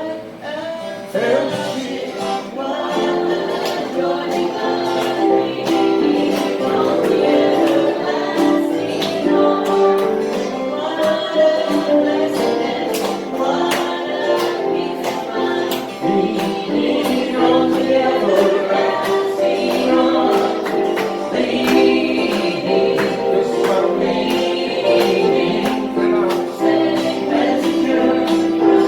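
A gospel song sung by a group of men's and women's voices, with a steady beat.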